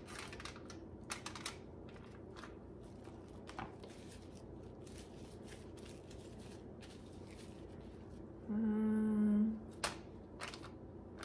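Soft, faint handling noises of gloved hands shaping raw meatballs and setting them on foil in an air fryer basket: a few light clicks and rustles in the first few seconds. About eight and a half seconds in, a woman hums one steady note for about a second, the loudest sound here.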